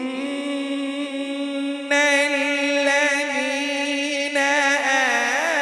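A qari's voice in melodic Qur'an recitation (tilawat), holding one long drawn-out note. It grows louder about two seconds in and again past four seconds, then breaks into quick wavering ornaments near the end.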